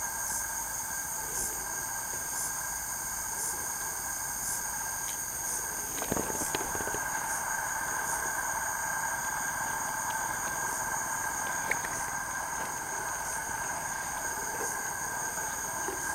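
Night insect chorus: steady high trilling with a faint regular pulse of chirps above it and a lower steady drone beneath. A short knock of handling sounds about six seconds in.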